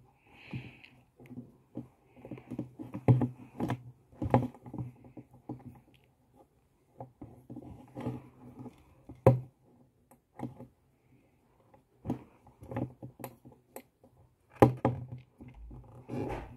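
Irregular rustling, clicks and soft knocks of fingers handling and braiding a doll's synthetic hair close to the microphone, with a few louder knocks.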